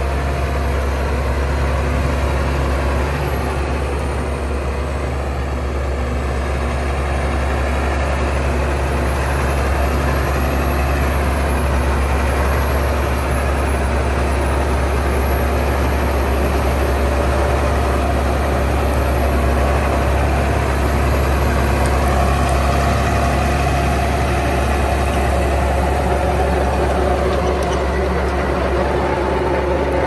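Massey Ferguson 7720 S tractor's six-cylinder diesel engine running steadily at constant speed, working a vertical-tine power harrow in seedbed preparation.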